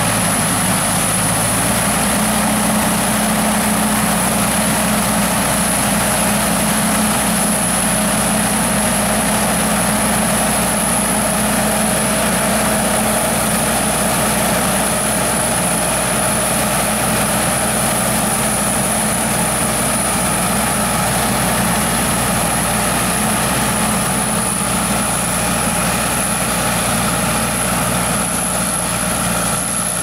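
Sakpattana KM-AMT corn combine harvester running steadily as it cuts standing corn: engine and harvesting machinery at a constant pitch, with a thin high whine over it. About two seconds in, the low engine note shifts a little higher.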